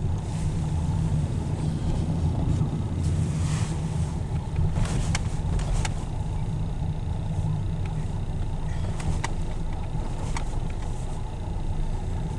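Steady low rumble of a car's engine and tyres heard inside the cabin as it drives slowly, with a few scattered faint clicks.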